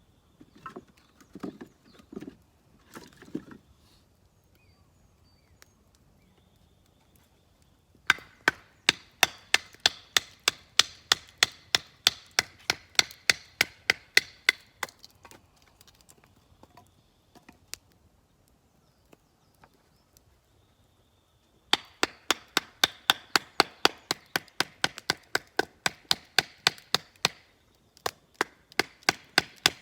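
Quick, even chopping strokes on wood, about three or four a second, in two long runs, with a few softer knocks near the start.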